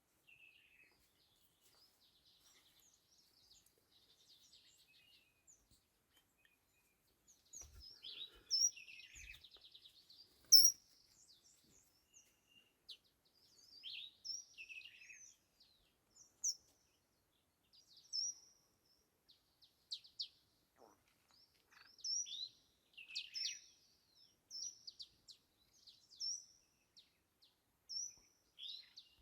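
Birds calling: short, high chirps repeated every second or two, with a rapid trill at about eight seconds in and a sharp, louder chirp shortly after.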